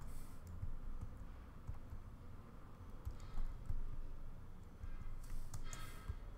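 Computer keyboard keys being pressed: a few scattered, irregular clicks and taps.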